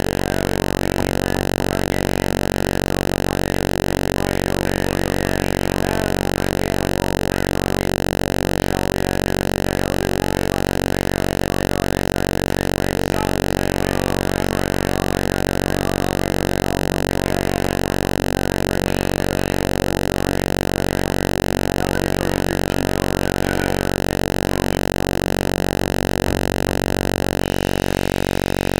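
A loud, steady buzz with many evenly spaced overtones, unchanging throughout, with faint small sounds flickering beneath it.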